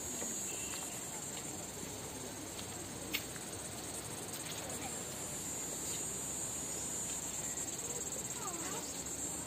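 Steady high-pitched insect chorus, with one sharp click about three seconds in.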